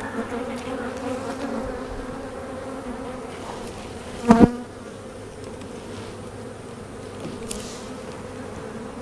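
Honeybees buzzing in a steady hum around an open hive. A single sharp knock sounds about halfway through.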